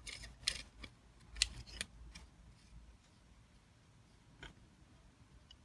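Small sharp clicks and taps of a Smith's precision sharpening kit being handled as the coarse stone is screwed onto its T-bar, several in the first two seconds or so, then one more click about four and a half seconds in.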